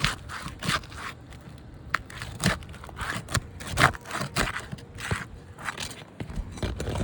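Asphalt roof shingles being pried up, their sealant strips tearing loose in an irregular series of short scrapes and crackles.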